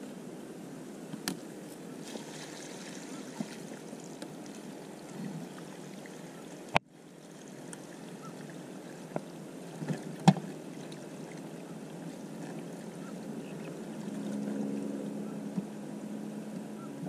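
Water being changed in a live-bait cooler: water sloshing and splashing, with a few sharp knocks and clicks from handling the cooler and its lid, the loudest knock about ten seconds in.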